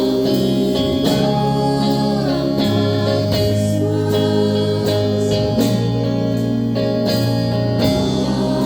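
Live band music: guitars over held bass notes with a sung vocal line, the bass shifting to a new note about two and a half seconds in.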